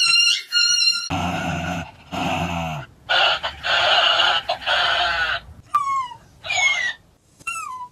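About a second of high squeaky sounds, then a Shiba Inu growling and grumbling for several seconds at a plush toy held up to it. It follows with three short high whines, each falling in pitch.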